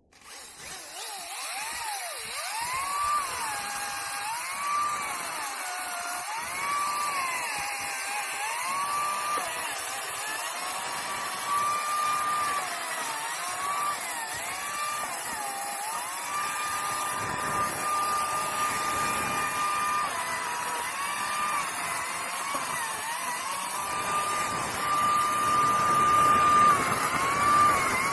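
Makita DUC204Z 18V cordless electric chainsaw starting up and cutting wood. Its motor whine repeatedly drops in pitch as the chain bites into the wood and rises back to full speed between cuts, with some longer stretches at steady full speed.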